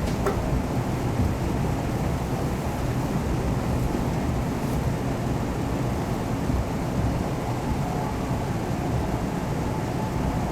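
Steady running noise inside the cabin of a KiHa 181 series diesel railcar: an even low rumble from the train on the move.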